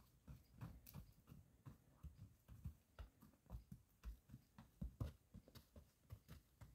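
Gotland pony's hooves crunching in snow as it walks, an irregular run of soft steps about two or three a second, growing louder as it comes closer.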